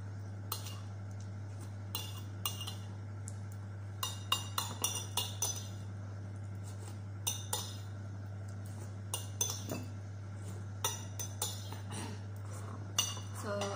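Metal spoon and fork clinking and scraping against a ceramic soup plate while eating, in irregular clusters of light clinks. A steady low hum runs underneath.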